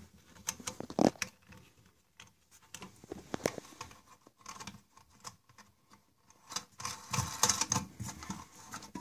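Irregular clicks, taps and scrapes of a plastic toilet fill valve being handled and seated in the tank's bottom hole, with a sharper knock about a second in and a busier run of clicks near the end.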